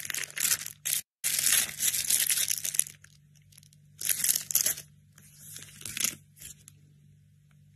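Plastic and foil packaging crinkling and tearing as a box is unpacked by hand, in bursts: a long stretch about a second in and another around four seconds.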